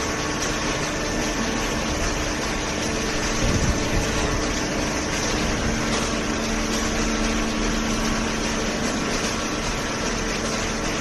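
Hydraulic baler's power unit running steadily: an even mechanical hum and hiss with a few steady tones, and a lower tone that comes in for a few seconds past the middle.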